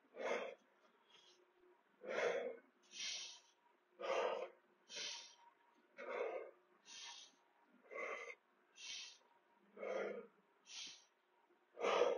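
Heavy, rhythmic breathing of a man exercising with weight swings: a forceful breath out followed by a quicker breath in, repeating about every two seconds.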